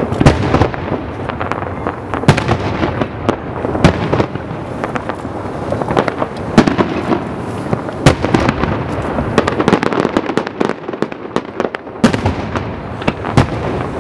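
Aerial firework shells bursting in a steady barrage: a run of sharp bangs, irregularly one or two a second.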